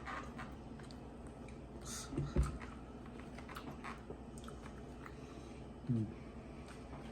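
A man chewing food, with many small mouth clicks throughout. Two brief low sounds stand out, about two seconds in, ending in a sharp thump, and again near six seconds.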